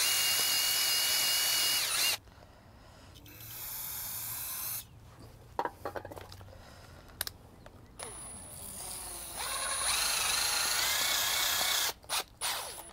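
Cordless Metabo HPT impact driver spinning a pipe-cleaner style wire brush inside a brake caliper bracket's slide-pin bores, scrubbing out the bores where the slide pins had been binding. It runs in spurts: a long run at the start, a shorter, quieter one, a long run with a wavering whine, then two brief bursts near the end.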